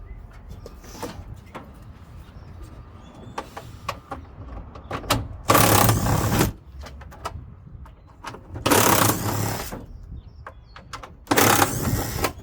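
Power driver with a socket extension running in three short bursts, about a second each, backing out the bolts that hold the front-load washer's two tub halves together, with light clatter of handling between bursts.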